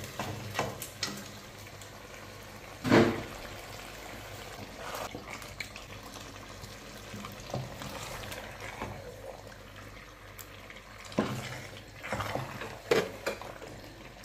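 Wooden spoon stirring fried fish into a stainless steel pot of simmering eggplant sauce: wet stirring over a steady low bubbling, with sharp knocks against the pot. The loudest knock comes about three seconds in, and a few more come near the end.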